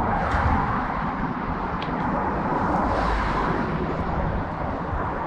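Steady road traffic noise from vehicles crossing the bridge, an even rushing hum with no breaks, with a couple of faint ticks.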